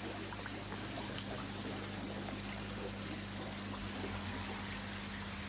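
Steady splashing and trickling of water cascading out of a bakki shower filter's spray bar through its media into a koi pond, over a steady low hum.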